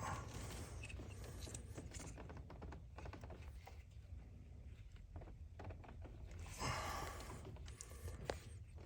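Faint scattered clicks and scrapes of hands handling parts, with a short rustle about seven seconds in and one sharper click just after.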